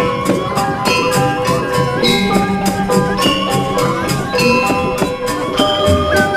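Balinese gamelan music: bronze metallophones and gongs ring with held tones over a quick, steady beat of sharp, clashing strikes.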